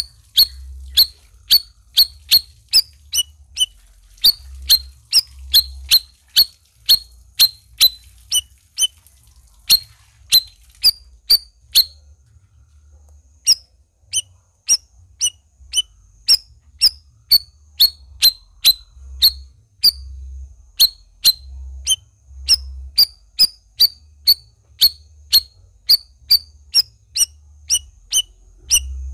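Cucak rawis bulbul calling a steady string of short, sharp, falling notes, about two a second, with a pause of about a second and a half midway.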